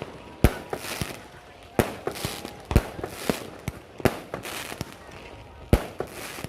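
Fireworks going off: sharp bangs about a second apart, the loudest about half a second and about three seconds in, each trailed by crackling.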